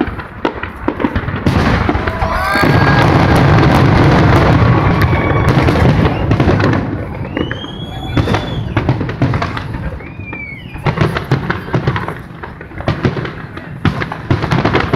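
Aerial fireworks shells bursting in quick succession, with booms and crackles throughout. A dense, loud run of overlapping bursts and rumble comes from about one and a half to six and a half seconds in, then separate bangs carry on.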